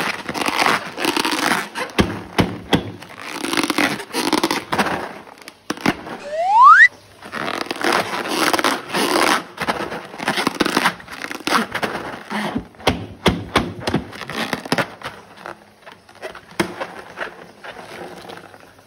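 Slime being squeezed and worked by hand, a dense, irregular run of wet crackles and squelches that thins out near the end. A brief rising squeal, the loudest sound, comes about six and a half seconds in.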